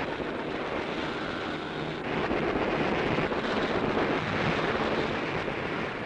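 Steady, dense aircraft engine noise on an old newsreel soundtrack, getting a little louder about two seconds in.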